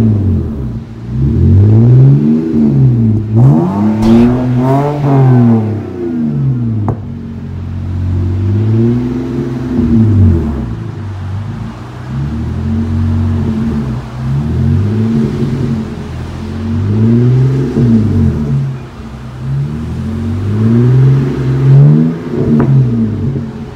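2011 BMW 528i's straight-six engine revved repeatedly through a Rich's Street Demon cat-back exhaust with a single performance muffler and dual staggered tips. There are about seven rev blips, each climbing and falling back over a second or two, with a deep exhaust tone.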